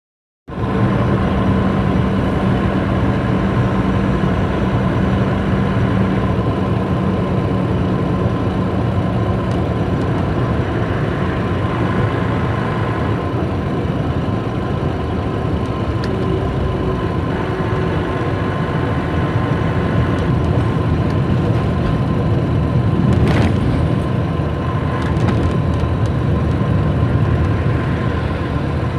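DAF truck's diesel engine and road noise heard from inside the cab while driving at speed, a steady drone with a thin steady whine over it. A single sharp knock a little over twenty seconds in.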